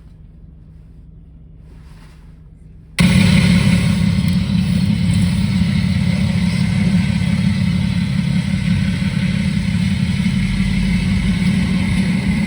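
Car driving noise heard from inside the vehicle, a steady low rumble of engine and road. It cuts in abruptly and loud about three seconds in; before that only a faint low hum is heard.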